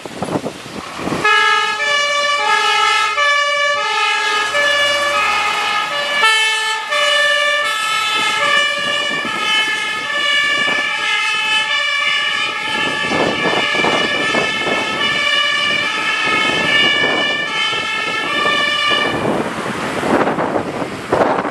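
German fire engine's two-tone horn (Martinshorn) sounding, a low and a high note alternating steadily. It starts about a second in and stops a couple of seconds before the end, with wind noise on the microphone around it.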